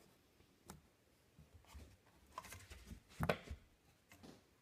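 Faint, scattered clicks and taps of a sunroof visor bracket and screw being handled and fitted into the metal roof rail, the loudest a little over three seconds in.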